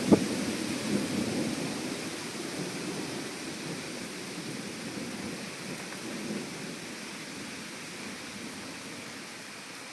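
Thunder: a sharp crack right at the start, then a low rumble that rolls on and dies away over the next several seconds. Steady rain falls throughout.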